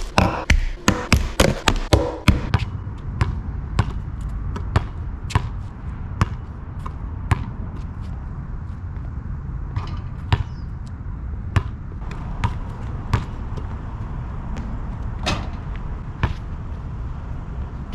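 A rapid series of sharp knocks, about four a second, for the first two seconds or so, then single knocks about every second over a steady low hum.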